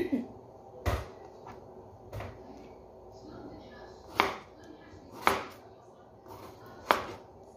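Kitchen knife slicing raw chicken breast, the blade knocking on the cutting board about six times at irregular intervals, with quiet cutting between the knocks.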